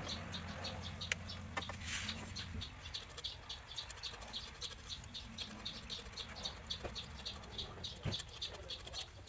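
Steady run of short, high chirps, about four a second, from a small animal, with a few light clicks and a low hum that fades out early on.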